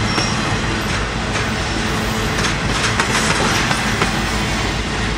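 Double-stack intermodal container train rolling past: a steady rumble and wheel noise from the well cars, with scattered clicks from the wheels.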